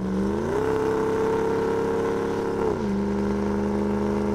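Remanufactured 5.7 L HEMI V8 in a Dodge Ram 1500 pickup under throttle on the road. The engine note climbs quickly at the start and holds steady, then drops sharply to a lower steady pitch about three seconds in.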